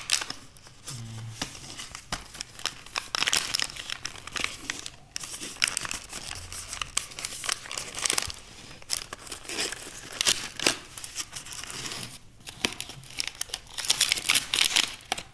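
Packaging of a smartwatch being handled and opened by hand: a cardboard box and its contents rustling, crinkling and scraping with scattered clicks. There are brief lulls about five seconds and twelve seconds in.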